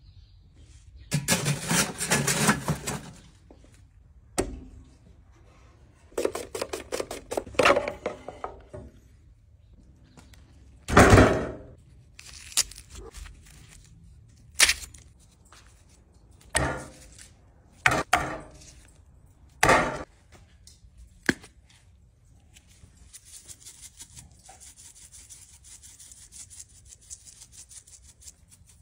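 Food-prep handling noises: plastic packaging crinkling and raw steaks and objects knocked down on a wooden cutting board, a run of separate sharp knocks after the rustling, then a faint steady hiss near the end.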